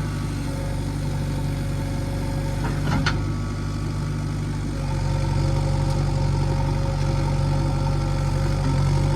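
Heavy diesel engine running steadily, with one sharp clank about three seconds in; the engine note lifts slightly a little before halfway.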